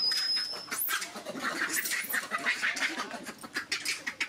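A dense string of short, high-pitched squeaking and chirping animal calls, with a quick rising squeal about a second in.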